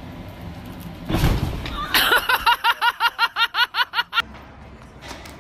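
A loud, heavy thud about a second in as a man drops from a roof onto an inflatable bounce house. It is followed by about two seconds of rapid pitched laugh-like pulses, about eight a second, that cut off suddenly.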